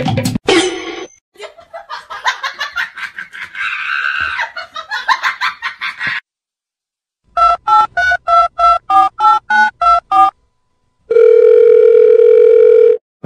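Telephone tones: about a dozen short keypad beeps in quick succession, then a steady telephone tone held for about two seconds near the end. Before them, a few seconds of busy, music-like sound.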